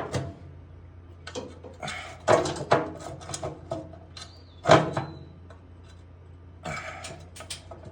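Metal parts and tools clinking, knocking and rattling as a bolt is worked into line by hand, in irregular clatters, with a sharp knock just before five seconds in.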